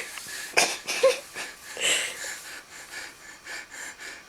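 A sleeping man breathing heavily with a wheezy, airy sound: a few sharp breaths in the first two seconds, then softer breathing.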